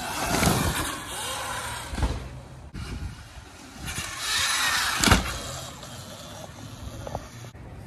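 A bike jumping a kicker ramp: a rush of noise on the approach, then a loud thump about five seconds in as it lands. From where the riders stood, the landing looked like a case, the wheels hitting the ramp's landing short.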